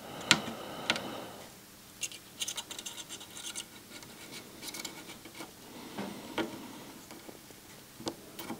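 Faint, irregular small clicks and scratches of tools and electronic parts being handled on a circuit board during hand repair work, with a cluster of light ticks a couple of seconds in.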